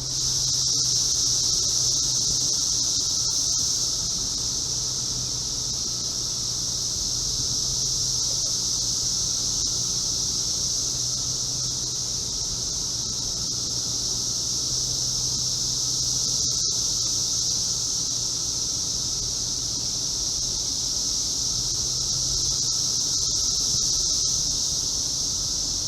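Chorus of Brood X periodical cicadas: a loud, continuous high-pitched drone that swells and eases slightly, with a brief break about sixteen seconds in.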